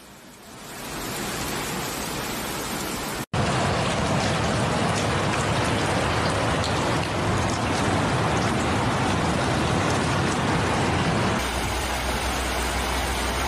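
Steady, loud rush of muddy floodwater and heavy rain, a continuous noise without pauses. It breaks off at abrupt cuts about three seconds in and about eleven seconds in, and after the second cut a deeper rumble joins it.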